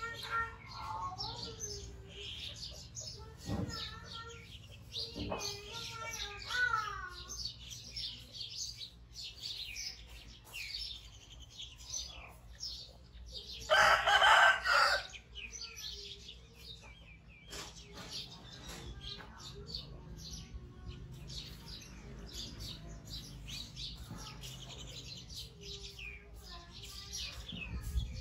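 Small birds chirping and chickens calling in the background, with a rooster crowing loudly once about halfway through.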